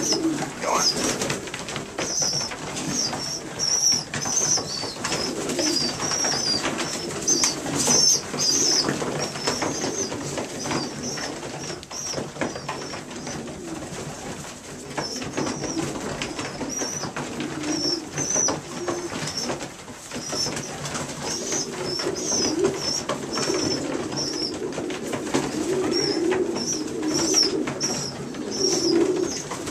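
Newly weaned young racing pigeons (squeakers) peeping in short, high, repeated squeaks, over a steady background of pigeon cooing. Scattered light taps run through it.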